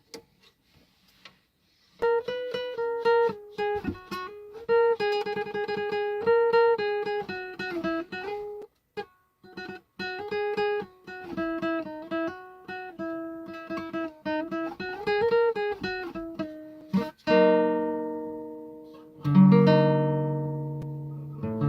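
Acoustic guitar: a melody of single plucked notes starting about two seconds in, then two strummed chords left ringing near the end.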